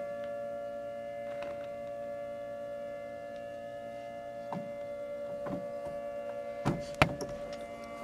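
Outdoor tornado warning siren held at a fixed pitch, sounding a steady chord of tones during its monthly test. A few sharp knocks break in, the loudest two close together about seven seconds in.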